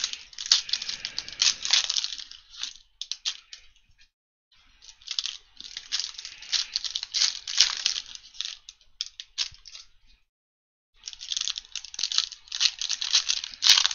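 Foil wrapper of a Panini Prestige football card pack crinkling and tearing as it is handled and ripped open, in three spells of rustling with short pauses between.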